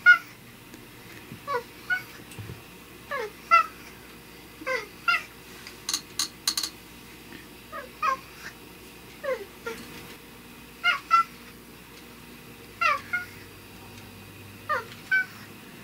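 Tabby-and-white mixed-breed house cat meowing over and over, short calls that fall in pitch, often two close together, every second and a half or so. She is demanding food, protesting at being offered dry kibble instead of the tuna sashimi she wants.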